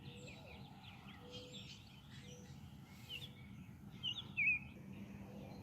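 Birds chirping outdoors: scattered short calls over quiet background noise, with a louder call about four seconds in.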